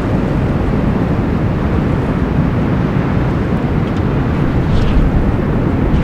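Strong wind blowing in a steady rush that is heavy in the low end, with a few faint higher whistles near the end.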